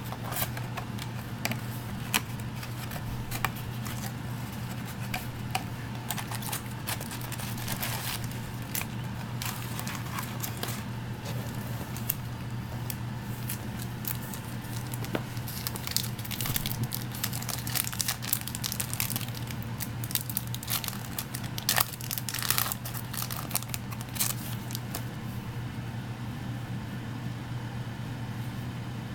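Plastic wrapping of a trading-card booster box being torn and crinkled by hand. It crackles on and off, with the busiest, loudest crinkling in the second half, over a steady low hum.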